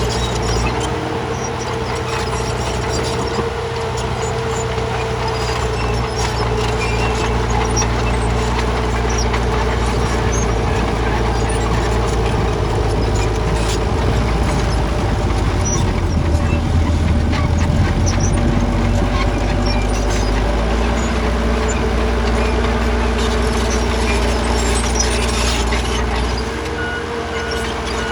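Heavy earthmoving machine's engine running steadily under work, with a steady whine over it. The low engine note swells briefly about two-thirds of the way in.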